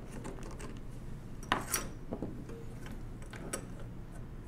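Light metal clicks and clinks of small steel parts as a screw and lever are taken off the frame of a 1920s Monroe mechanical calculator, with one sharper click about one and a half seconds in.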